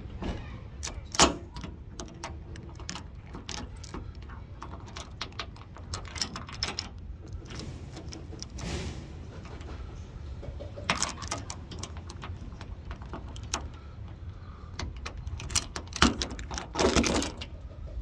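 Sesamee combination padlock being worked by hand: many small clicks as its number wheels are turned, with louder metallic clanks and clinks as the shackle is opened and closed against the hasp and chain, about a second in, midway, and twice near the end.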